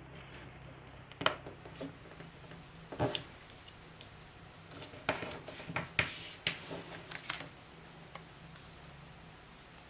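Sheet of origami paper being folded and creased by hand: several short crisp rustles and taps, most of them in the middle stretch, over a faint steady low hum.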